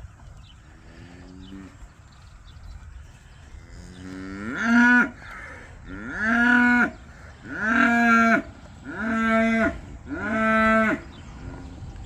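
Dexter cattle mooing: a faint moo about a second in, then five loud moos one after another, each about a second long, rising in pitch at the start and then held.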